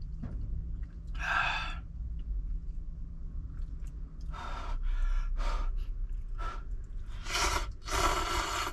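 A person slurping cup noodles with chopsticks: several short, breathy slurps, the longest pair near the end, over a low steady hum.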